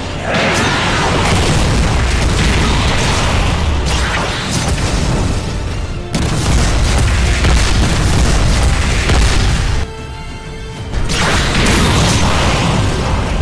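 Animated fight sound effects: heavy booming impacts and blasts, one after another, over dramatic background music, with a short lull about ten seconds in.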